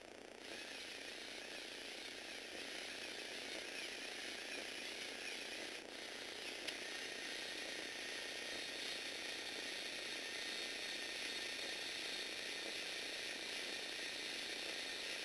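Small electric motor driving the Lego Technic 8258 crane truck's plastic gear train, a steady whir as the boom is raised and extended, with a brief break about six seconds in.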